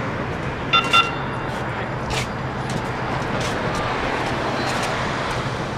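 Light rail train approaching a station platform, a steady running noise with a low hum, and street traffic around it. About a second in come two short high beeps in quick succession.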